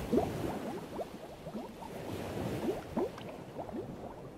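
Water bubbling: many small bubbles in quick succession, each a short upward-gliding blip, growing fainter toward the end.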